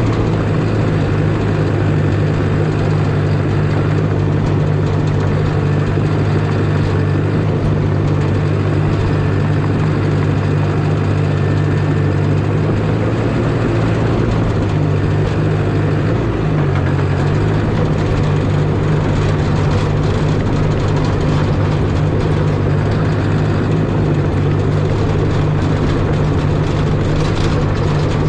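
Caterpillar D5 bulldozer's diesel engine running steadily, with a brief shift in pitch a little past halfway.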